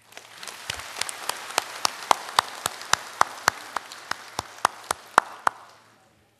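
Audience applauding, with one pair of hands clapping loudly and evenly about four times a second over the general clapping; the applause dies away near the end.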